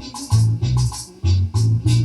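Reggae music playing, with a loud, deep bass line in short repeated notes and a steady high percussion pattern above it.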